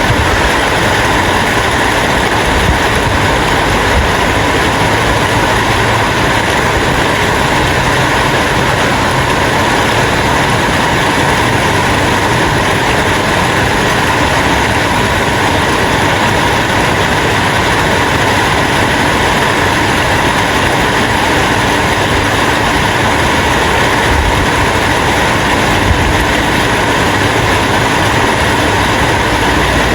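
Steady rain falling, a dense, even hiss that does not let up.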